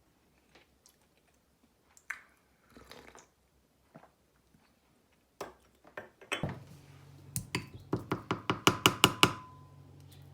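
A few light knocks and taps, then a steady low hum from an appliance switches on. Over it comes a quick run of about ten sharp pitched beeps or clicks, ending in a short held tone.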